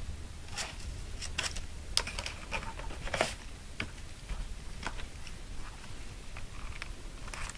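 Handling of paper and card: a CD slid from its cardboard sleeve, then printed booklets lifted and shuffled, giving light rustling and a scatter of small clicks and taps, the sharpest about three seconds in.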